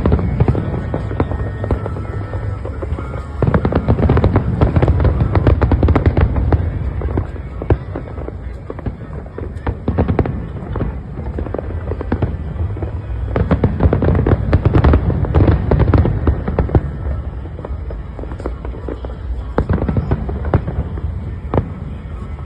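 Fireworks display: rapid volleys of bangs and crackles over deep booms, coming thickest about three and a half seconds in and again about thirteen seconds in.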